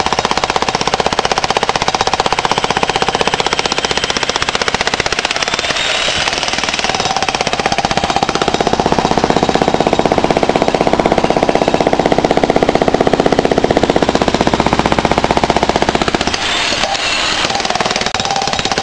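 Electric jackhammer breaking up old concrete: a loud, fast, continuous hammering. About halfway through it takes on a fuller, deeper sound for several seconds, then goes back to a lighter sound near the end.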